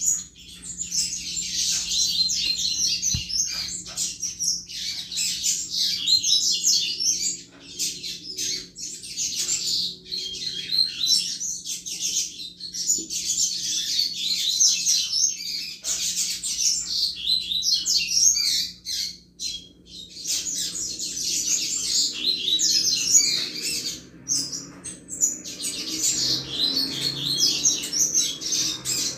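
Double-collared seedeater (coleiro) singing the 'Chuva' song: long, fast runs of high chirping notes, phrase after phrase with brief pauses between them. The song starts suddenly at the very beginning.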